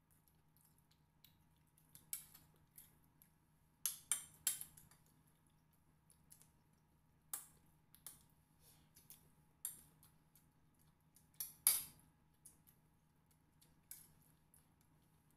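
Close-up eating noises as two people eat rice and pork by hand: short, sharp clicks and smacks at irregular intervals, the loudest about three quarters through.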